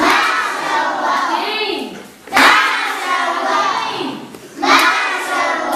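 A class of children's voices chanting together in three loud phrases of about two seconds each, with hand clapping.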